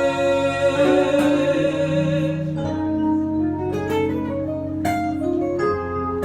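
Instrumental break in a song, with no singing: held chords at first, then from about halfway a run of separate plucked notes.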